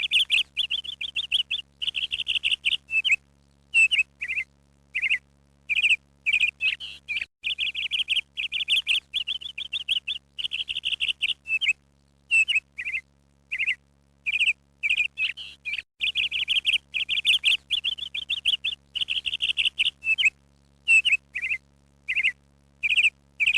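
Recording of small songbirds chirping and twittering in quick high bursts over a faint steady hum. The same sequence repeats about every eight seconds, as a looped background track.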